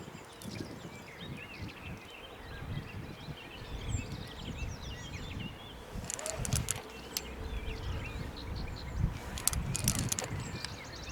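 Outdoor ambience of birds chirping over gusty wind rumbling on the microphone, with a few clusters of sharp clicks about six and nine seconds in.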